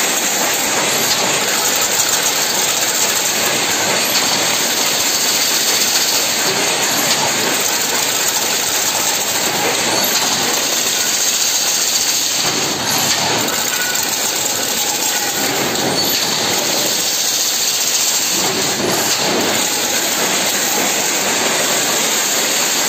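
Automatic chain-link fence weaving machine running: a loud, steady mechanical noise with a hiss, marked by a faint repeating sound about every three seconds.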